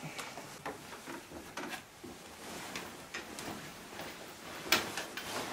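Footsteps and small knocks of a person getting up and walking across a room, with one sharper click a little before the end.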